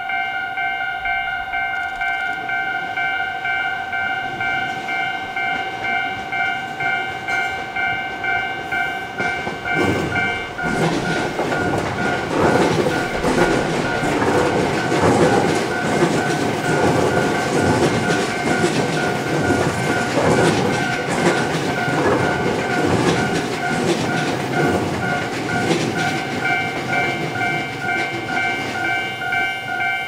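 Japanese level-crossing alarm ringing in a steady repeating pattern. About ten seconds in, a Tobu stainless-steel commuter electric train passes close by for some fifteen seconds, its wheels clattering over the rail joints and largely drowning the alarm. The alarm is heard alone again near the end.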